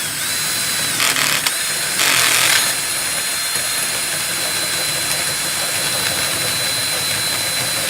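Power drill driving a 2 1/8-inch (54 mm) hole saw through the metal skin of a door: a steady high motor whine with rougher grinding stretches as the teeth bite, the speed dipping briefly a couple of times in the first second and a half.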